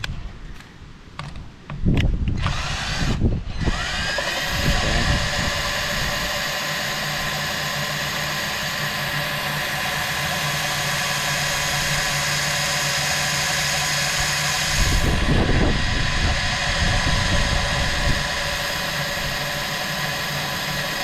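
Cordless drill driving a Warn portable drill winch, reeling in its steel cable: a few short trigger pulls, then a steady motor whine that spins up about four seconds in and runs on as the cable takes up slack and comes under tension.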